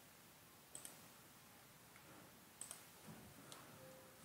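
Three faint, sharp computer-mouse clicks, two of them quick press-and-release pairs, over near-silent room tone.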